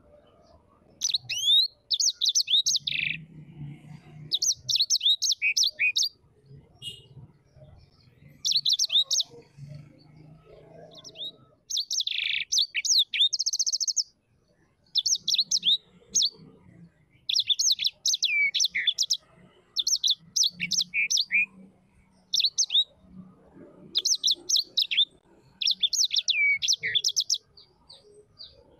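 A bird chirping: short bursts of quick, high chirps, repeated every second or two.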